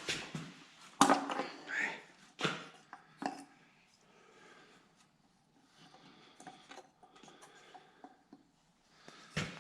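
Metal tools and engine parts being handled: four sharp clanks and knocks in the first few seconds, then lighter clicking and rattling, and one more knock near the end.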